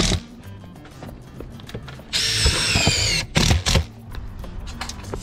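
Cordless impact driver running a screw into a steel roofing panel: a motor whine for about a second starting two seconds in, then a short second burst as the screw is driven home.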